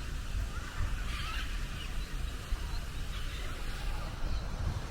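Low rumble of wind on the microphone, with faint bird calls in the background.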